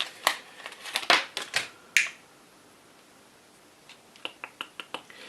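Sharp clicks and taps of small plastic parts and tools being handled on a work surface: a cluster of loud clicks in the first two seconds, then a quick run of about eight light ticks near the end.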